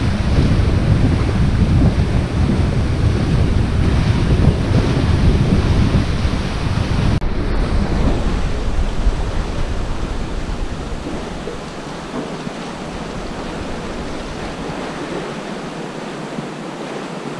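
Wind buffeting the microphone over the steady wash of the sea around the pier's legs. The low wind rumble is heavy at first and eases from about ten seconds in.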